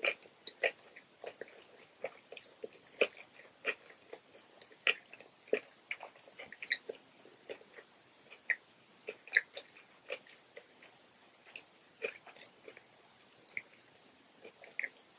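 Close-miked chewing and mouth sounds of someone eating a cucumber roll: many short, irregular clicks and smacks.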